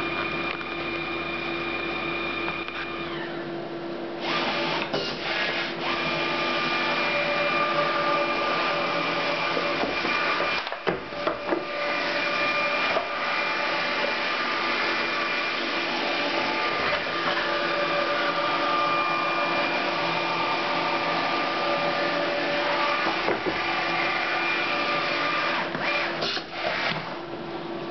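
A Memjet SpeedStar3000 inkjet label printer starts up and prints a continuous run of labels. A steady hum with whining tones jumps about four seconds in to a louder, continuous mechanical running sound with high whines. A few sharp clicks come near the middle and near the end.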